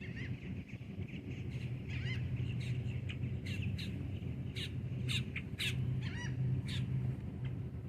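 Birds calling near the water: many short, crow-like calls, coming thick and fast from about two seconds in, over a steady low hum.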